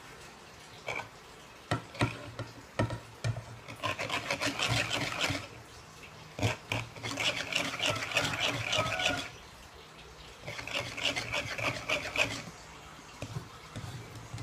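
Pancake batter being beaten with a metal fork in a large bowl: a few separate clicks of the fork against the bowl, then three spells of fast scraping and tapping strokes lasting a second or more each.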